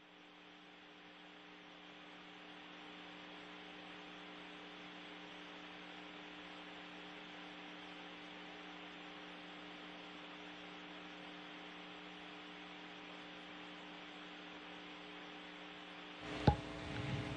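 Steady electrical hum with a hiss on an open broadcast audio line, with nobody speaking. A click and a rise in noise come about a second before the end.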